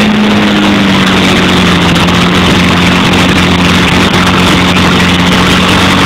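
UAZ-469 off-roader's engine running hard and steady while its front wheels spin in deep mud. The engine note sags slightly over the first couple of seconds, then holds.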